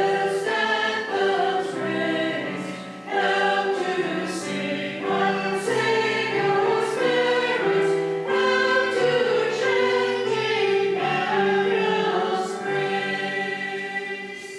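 A church choir singing an anthem in parts, with long held chords and clear sibilant consonants. Near the end the last chord dies away.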